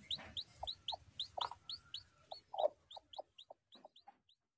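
Broody hen clucking in short, repeated low calls while newly hatched chicks peep in quick, high chirps, about three or four a second. Both thin out and stop shortly before the end.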